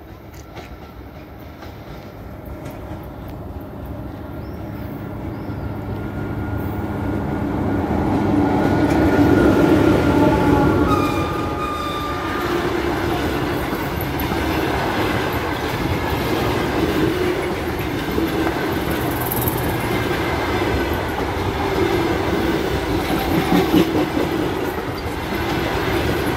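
Locomotive-hauled passenger train approaching and passing close by. The rumble grows steadily louder, with a thin high whine as it nears, and is loudest about nine or ten seconds in as the locomotive goes past. The coaches then keep rolling by with a steady, unbroken noise.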